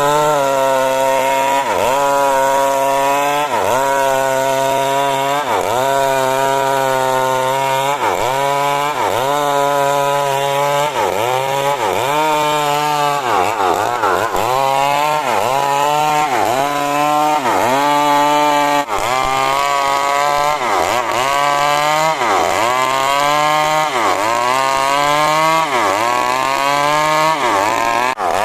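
Two-stroke chainsaw cutting coconut-palm wood into boards. The engine's pitch dips under load and picks up again about every second and a half.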